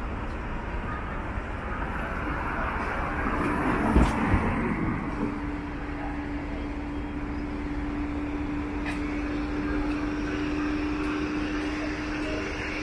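City street traffic noise: a steady wash of passing vehicles, with a loud knock about four seconds in, after which a steady low hum holds.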